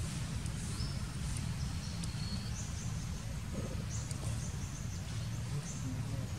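Outdoor ambience: short high chirps repeat roughly once a second over a steady low rumble.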